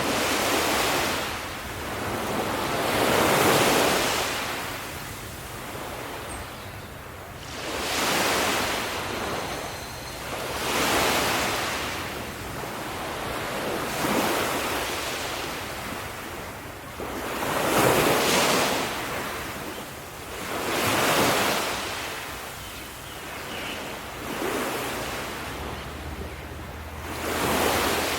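Ocean waves breaking on a shore, each wave swelling into a rush of surf and then fading, about every three to four seconds.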